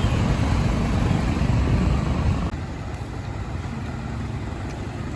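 Road vehicle noise: a steady, rumbling wash of engines and traffic, dropping in level about two and a half seconds in.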